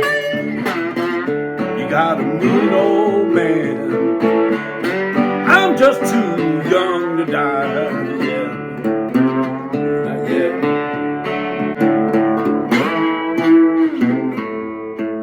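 Resonator guitar played with a slide: an instrumental blues passage of plucked notes with pitches gliding and bending between them.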